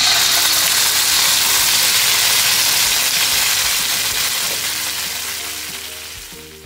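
Rendang paste sizzling loudly as it hits a hot wok. The sizzle starts suddenly and dies down over the last couple of seconds.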